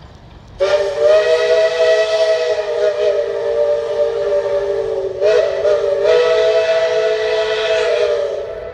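Tweetsie Railroad #12, a 4-6-0 steam locomotive, blowing its steam whistle as it passes: a chord of several steady notes in a long blast, a brief break near the middle, then a second long blast that fades out near the end.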